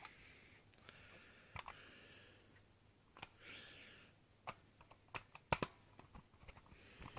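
Scattered small metal clicks and taps from a full-metal spring-powered airsoft pistol being pried apart at the slide with a flathead screwdriver. The loudest click comes about five and a half seconds in, with soft rustling between the clicks.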